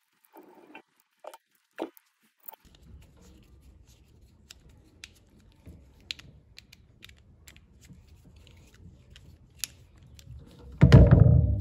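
Small clicks and scratches of a screwdriver working the terminal screws of a plastic rocker switch as wires are fastened to it, over a faint low hum. Near the end comes a loud low noise lasting under a second.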